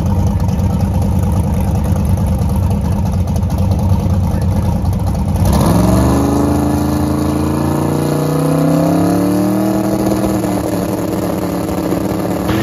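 A drag car's twin-turbo big-block V8 running loud on the starting line. About five and a half seconds in, the revs climb with a rising pitch, then level off and dip a little near the end.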